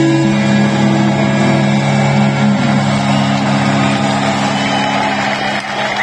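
A heavy metal band's final chord held and ringing out through a festival PA, a steady low drone of guitars and bass, over a large crowd cheering as the song ends.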